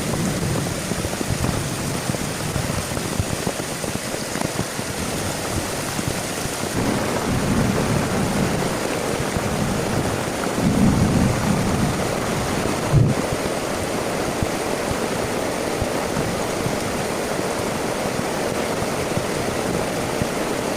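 Heavy rain falling steadily, with low rumbles swelling and fading now and then and a single sharp knock about two-thirds of the way through.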